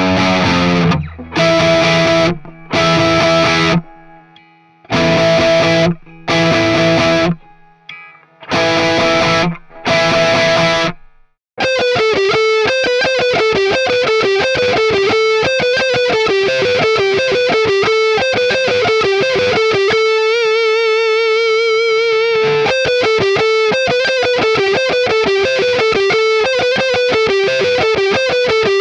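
Cort CR250 electric guitar played through distortion: a run of short, separated chord hits, then, about eleven seconds in, a fast single-note lead line that keeps going, with one held note shaken by vibrato a little past the middle.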